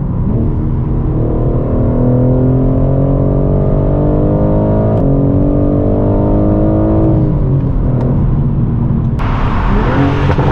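BMW M4 G82's twin-turbo straight-six, breathing through a full titanium valved cat-back exhaust, pulls steadily under acceleration, its pitch climbing for about seven seconds before dropping as the throttle is lifted. Near the end a sudden louder rush of noise comes in.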